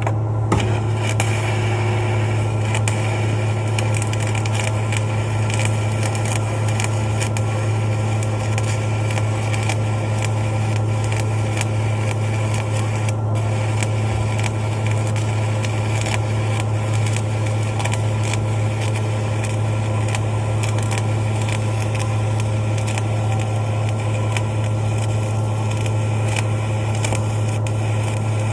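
Electric arc welding: the continuous, irregular crackle of a stick-welding arc laying a hardfacing bead, over the steady low hum of the welding machine.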